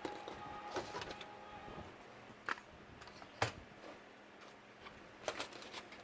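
Scattered light clicks and taps of small laptop parts and the drive casing being handled, a handful of sharp clicks a second or so apart over faint room hiss.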